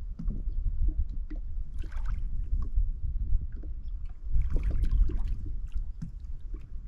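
Small waves lapping and slapping irregularly against the hull of a stationary Sea-Doo, over a steady low wind rumble on the microphone, with a couple of brief hissy washes of water.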